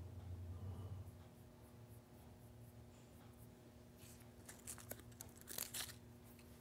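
Near-silent small-room tone with a steady low hum, a brief low rumble in the first second, and a few faint rustles and clicks about four to six seconds in.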